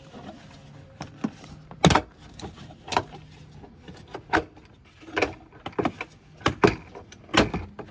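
Plastic cargo-area trim piece of a 2019 Subaru Ascent being pried and worked loose by hand: a series of sharp clicks and knocks, about seven in all, with the loudest ones about two seconds in and again near the end.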